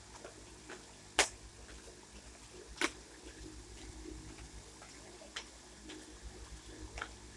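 Slippers slapping and scuffing on concrete steps as a person steps up and down: sharp clicks every one to two and a half seconds, the loudest about a second in, with fainter ticks between, over a low steady hum.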